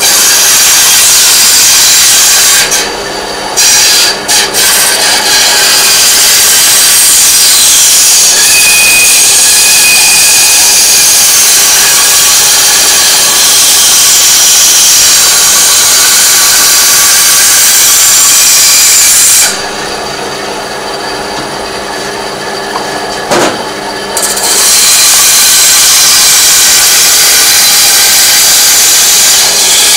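A power tool cutting into a metal workpiece: long, loud stretches of harsh cutting noise. It is broken by two brief pauses a few seconds in and a longer pause past the middle, during which the motor is heard running without load as a steady hum.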